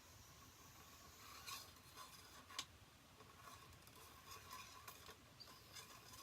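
Near silence with faint scraping and a few light clicks from handling a hunting rifle while it is cleaned with a rag and oil, over a faint steady hum.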